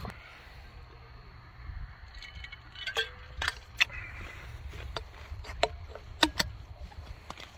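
A scatter of light, sharp clicks and clinks, starting about two seconds in and coming every half second or so, over a low steady rumble.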